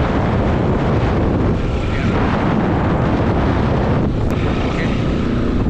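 Wind buffeting the microphone over the steady engine and road noise of a moving vehicle.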